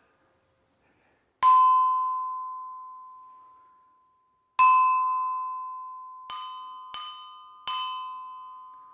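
Long stone lithophones, the so-called Saharan pestles, struck with a mallet: five strikes, each ringing with a clear, pure note that fades slowly over a few seconds. The first two strikes are about three seconds apart; the last three come quickly, under a second apart, and add a second, slightly higher note. The stones ring with harmonics, a musical tone and not a noise, which the researcher takes as the sign that they are sound-making instruments and not grinding tools.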